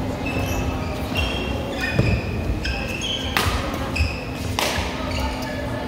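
Badminton doubles rally: many short high squeaks of court shoes on the court, with a few sharp racket strikes on the shuttlecock, the loudest about three and a half and four and a half seconds in, echoing in a large hall.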